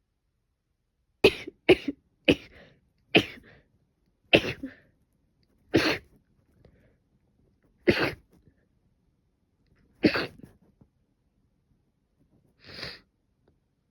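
A woman with a cold coughing repeatedly: eight sharp coughs, the first four in quick succession, then more spaced out, followed by a softer, breathier sound near the end.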